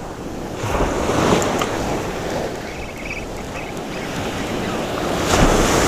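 Ocean surf breaking and washing up the beach, with wind buffeting the microphone; the wash swells louder about a second in and again near the end.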